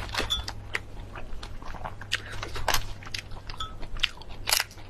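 Close-miked eating: irregular wet clicks, smacks and crunches of biting and chewing food, over a steady low hum.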